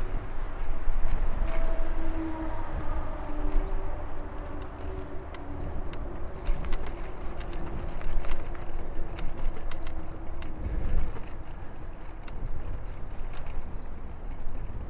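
Riding noise from a bicycle: a steady low rumble of wind and tyres on the frame-mounted camera's microphone, with frequent light rattles and clicks from the bike and mount. Music fades out in the first few seconds.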